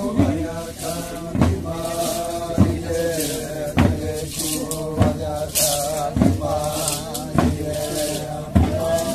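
Tuyuka ritual dance song: a group of voices chanting a repeating melody in unison, marked by a heavy thump about every 1.2 seconds as the dancers strike the ground in step.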